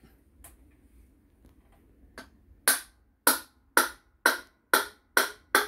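A wooden block tapping a metal socket down into the top hole of an empty Coleman gas canister: seven sharp knocks, about two a second, starting about halfway through. The socket has been filed down slightly so that it goes in.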